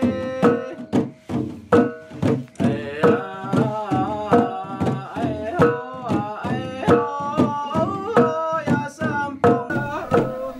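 Music with a steady drum beat of about two strokes a second and a wavering melody that comes in about two and a half seconds in.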